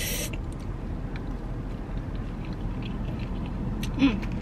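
Chewing animal-style fries, with small clicks of a plastic fork against the paper tray, over a steady low rumble of the car's cabin. A brief hummed voice sound comes near the end.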